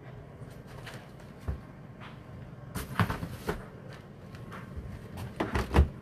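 Knocks and clatter of things being handled, then a fridge freezer door pulled open near the end in a cluster of loud bumps.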